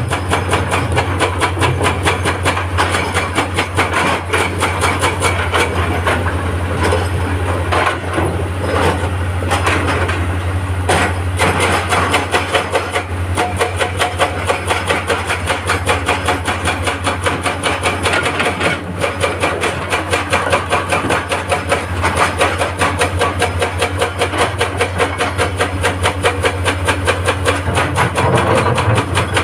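Excavator-mounted hydraulic breaker hammering rock in rapid, steady blows, over the excavator's diesel engine running under load.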